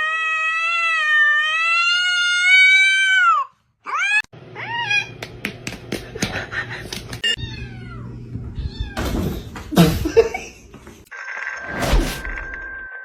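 Domestic cat giving one long, loud meow of about three and a half seconds that rises slightly and drops at the end, followed by several short rising meows among clicks and knocks. A steady high tone sounds near the end.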